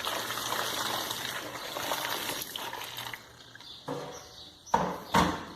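Water running and splashing for about three seconds, then stopping, followed by a couple of sharp knocks near the end.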